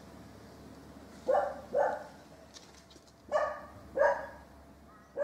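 A dog left alone, barking: two barks about half a second apart, a pause of over a second, then another two, with a fifth starting at the very end. The barking is the sign of a lonely, isolated dog.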